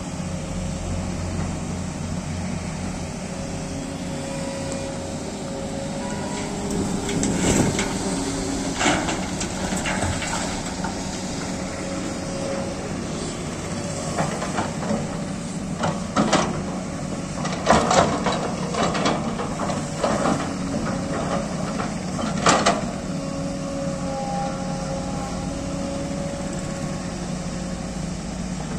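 Large Sany crawler excavator's diesel engine running steadily under load. Over it come irregular knocks and clatter as the bucket digs and soil and stones drop into the steel dump truck bed: a short spell about a quarter of the way in and a busier one from just past the middle to about three-quarters through.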